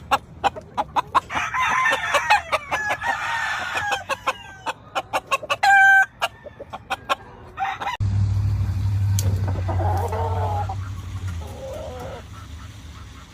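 Gamefowl roosters clucking rapidly and crowing, several pitched calls over a stream of short clucks. About two-thirds of the way through the sound changes to a low steady rumble with a fainter call over it.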